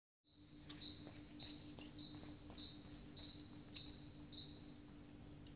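A small songbird repeating a two-note phrase, a higher note then a lower one, roughly every half second, going quiet near the end. A steady low hum lies underneath.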